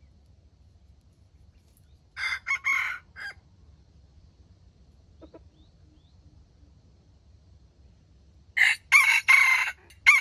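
A junglefowl rooster, used as a trap decoy, crowing twice: a short, choppy crow of a few clipped syllables about two seconds in, and a second crow starting near the end.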